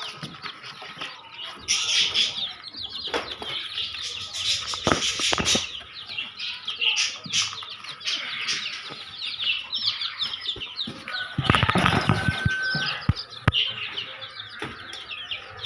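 A crowd of young chicks peeping constantly in high, falling cheeps, with knocks, rustling and a brief flutter of wings as they are handled and set down; the thumps are loudest about three-quarters of the way through.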